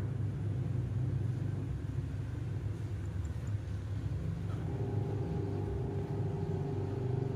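Steady low machine rumble, with a second steady hum joining about halfway through.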